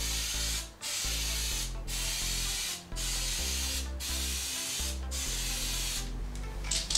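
Aerosol spray can of gray surfacer (primer) hissing in a run of bursts, each about a second long with short breaks between, as a full second coat is sprayed on. Background music with a slow stepping bass runs underneath.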